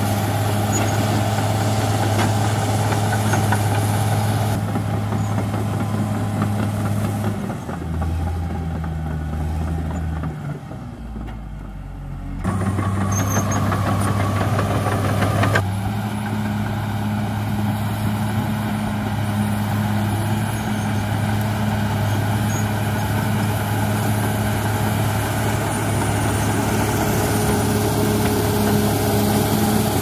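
CAT D6R XL bulldozer's diesel engine running steadily. For about five seconds a third of the way in the engine note drops lower and quieter, then comes back up abruptly.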